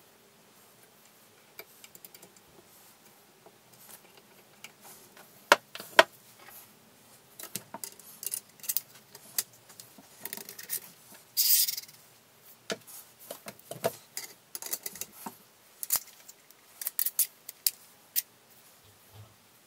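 Metal airgun parts being handled and fitted together: scattered clicks, taps and knocks, with two sharp knocks about half a second apart roughly a third of the way in, and a brief scrape of metal sliding against metal a little past the middle.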